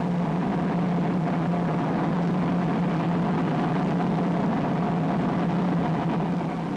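Jet-propulsion engine sound effect on a film soundtrack: a steady rushing drone with a low hum, easing off slightly near the end.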